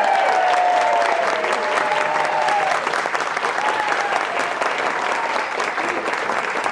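A roomful of guests applauding steadily, with a held tone that slowly falls in pitch over the clapping during the first three seconds.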